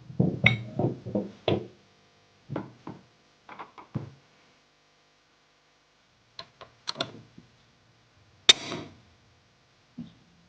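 Guitar background music that stops about a second and a half in, followed by scattered light clicks and one sharp knock with a short ring-out about eight and a half seconds in.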